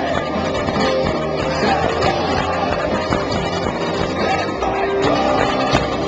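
Live rock band playing through a festival PA: electric guitars and drums, with some singing, recorded from within the crowd.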